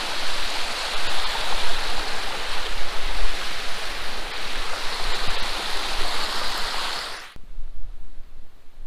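Small mountain stream and waterfall splashing over rocks: a steady rushing hiss that cuts off abruptly about seven seconds in, leaving only a much quieter low rumble.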